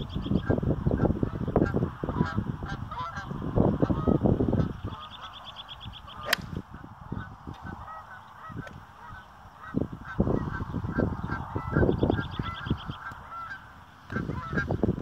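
An 8-iron strikes a golf ball once, a single sharp click about six seconds in. Geese honk repeatedly throughout, and gusts of wind rumble on the microphone in the first few seconds and again later.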